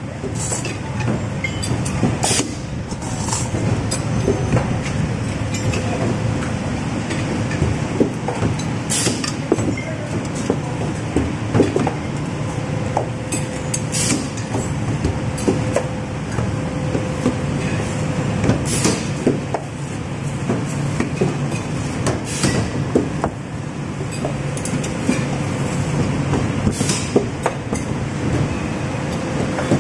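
Factory packing-line noise: a steady mechanical rumble with irregular sharp clicks and knocks, and a faint hum that comes and goes.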